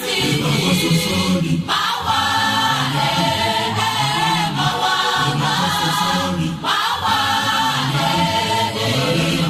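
Background music: a choir singing, in gospel style, in phrases with short breaks between them.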